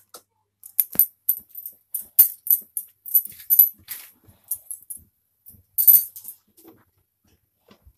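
Water droplets crackling and spitting in an iron kadhai heating over a gas burner: scattered sharp pops and clicks with short gaps, a low knock about a second in and a louder cluster near the end.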